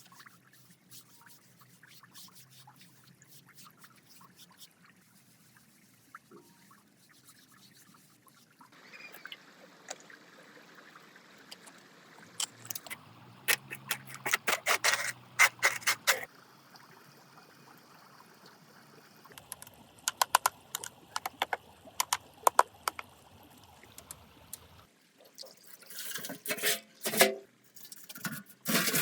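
Water trickling and pouring through a miniature model dam, with several runs of sharp clicks and taps that are the loudest sounds.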